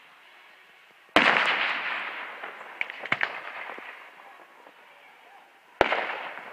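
Two aerial firework shells bursting, about four and a half seconds apart. Each is a sharp bang followed by a long, fading rumble, with a few small pops between them.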